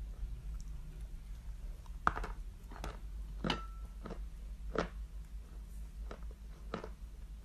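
Crunchy bites and chewing of a lump of edible chalk: a series of sharp crunches, about seven, the loudest about two seconds in.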